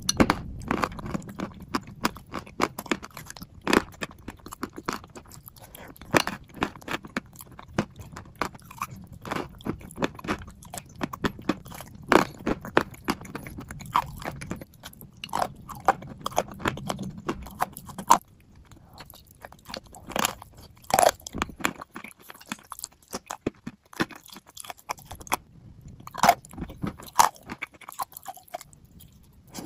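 Close-up chewing of clay chunks in a thick clay paste, with frequent sharp, irregular crunches.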